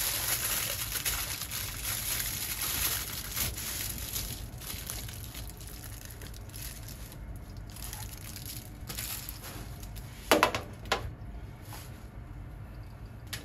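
Aluminium foil crinkling as it is folded tightly around a piece of beef, fading out after a few seconds. About ten seconds in come two sharp metallic clanks half a second apart, from a metal baking tray knocking on the stainless steel stovetop.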